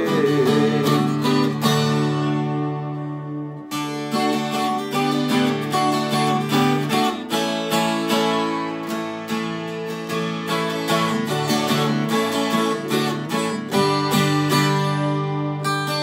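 Twelve-string acoustic guitar strummed, its chords ringing out. About two seconds in the strumming stops for a held chord, then picks up again.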